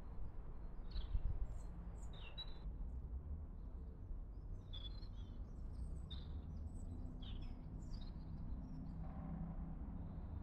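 Small songbirds chirping in short, scattered calls over a steady low rumble.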